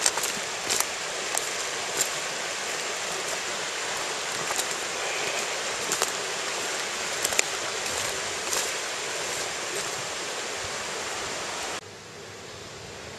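Stream water rushing, a steady dense hiss with scattered sharp ticks. About twelve seconds in it cuts off abruptly to a quieter, even hiss.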